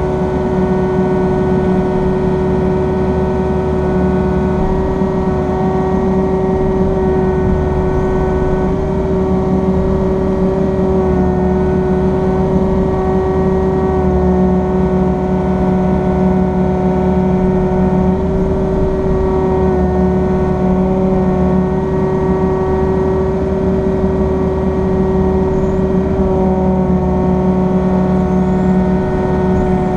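Mini excavator engine running steadily, heard from inside the cab, with a constant whine over a low drone. The lower note swells and eases every few seconds as the operator works the joystick controls for the grapple and tilt rotator.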